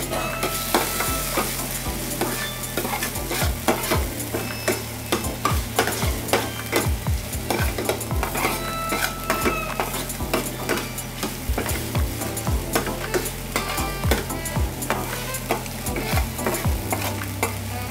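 A metal ladle stirring and scraping chicken pieces in spicy sauce in a frying pan, with many quick clinks of the ladle against the pan over the sizzle of the frying food. A steady low hum runs underneath.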